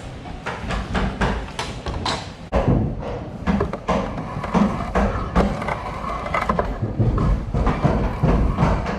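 Irregular knocks and thuds of hand woodworking, a few a second, with scraping noise between them; they grow louder and more frequent about two and a half seconds in.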